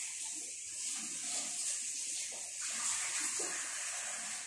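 Kitchen tap running steadily into the sink while dishes are washed.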